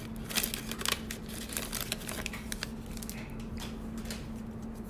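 Trading card pack being opened and its cards handled: light crinkling and sharp little clicks, mostly in the first two seconds and again briefly later, over a steady faint hum.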